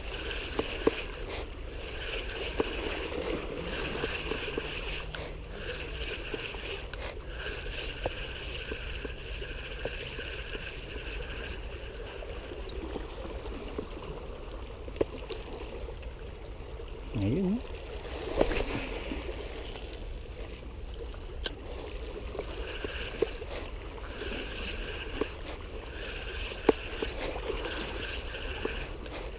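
Small waves lapping and gurgling against breakwater rocks, with the on-and-off whir of a spinning reel being cranked as a lure is retrieved.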